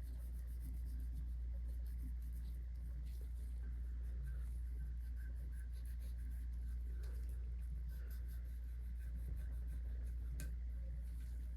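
Faint rubbing and scratching with small clicks from gloved hands working oil into AR-15 parts, one sharper click about ten and a half seconds in, over a steady low hum.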